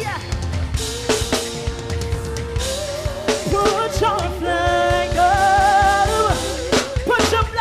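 Live band music: a drum kit with bass drum and snare keeps the beat under long held melodic notes, some of them wavering with vibrato.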